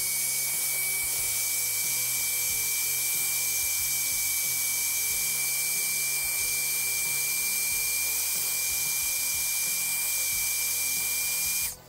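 Electric heat gun running steadily, a loud rush of blown air with a steady high whine, switched off at the very end. It is heating the crankshaft main bearing in the aluminium crankcase half so the bearing expands for fitting the shaft.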